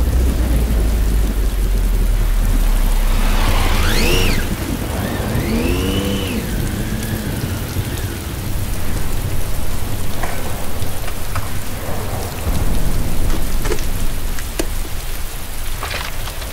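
Heavy rain falling steadily on wet pavement, with a deep rumble through the first few seconds and a few rising-and-falling whines about four to seven seconds in.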